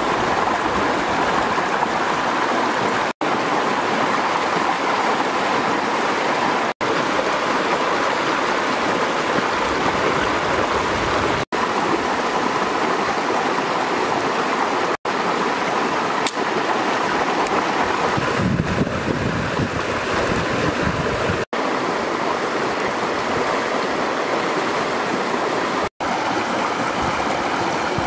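Rushing water of a rocky stream with small cascades, a steady even rush. It cuts out briefly to silence six times, every few seconds.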